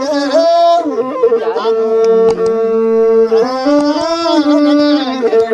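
A man singing in traditional Ethiopian style to a masenqo, a one-string bowed fiddle, with wavering ornamented phrases and one long held note in the middle.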